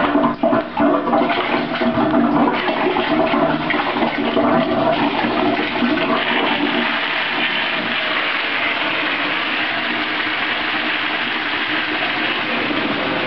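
A toilet flushing after its wall-mounted chrome push button is pressed: a few clicks right at the start, then a long, loud rush of water. The rush carries a droning tone for the first six seconds or so, then settles into a steady hiss that keeps going.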